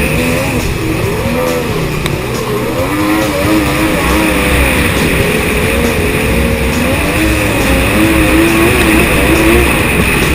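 Kawasaki SXR1100 stand-up jet ski's two-stroke triple engine running at speed. Its pitch keeps rising and falling, about once a second.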